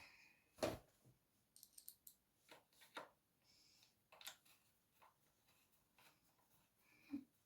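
Near silence broken by a few short, faint clicks and knocks, the sharpest one about two-thirds of a second in: plastic parts of an upright vacuum cleaner being handled during cleaning.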